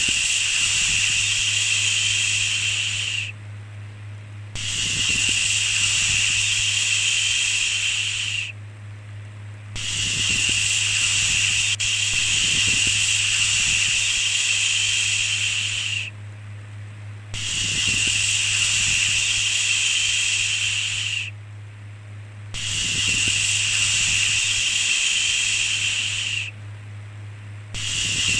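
Repeated long "shhh" shushing sounds, each lasting about four to six seconds with a pause of about a second between them, over a steady low hum.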